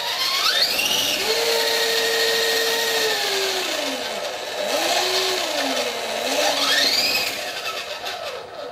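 Electric motors and rotor blades of a small coaxial R/C helicopter spinning up with a high whine and a whoosh of air. The pitch rises and falls three times as the throttle is pushed up and eased off.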